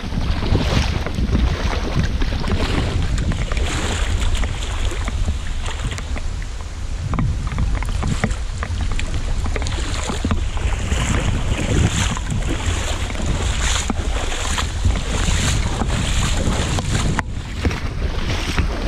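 Rubber boots (Hunter wellingtons) splashing through shallow running water, a splash with each step, over heavy rain and wind buffeting the microphone.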